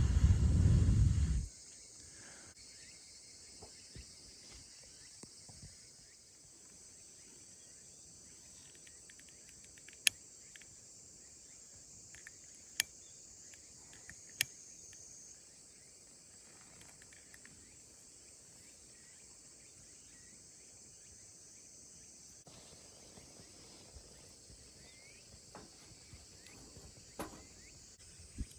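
Insects chirring in a steady, faint, high-pitched chorus, with a few sharp isolated clicks spread through it. A loud low rumble opens the first second and a half, then cuts off.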